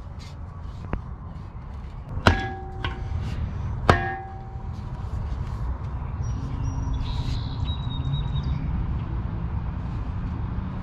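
Two sharp metal knocks about a second and a half apart, each leaving the steel shovel head ringing briefly, as the shovel is worked on during repair of its handle. A steady low rumble follows.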